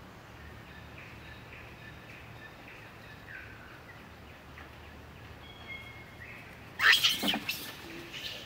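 Faint, high bird chirps now and then over quiet forest ambience. About seven seconds in comes a sudden loud, harsh burst lasting about half a second.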